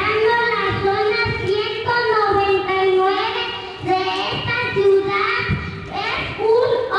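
A young girl singing into a microphone, holding long notes and gliding between them.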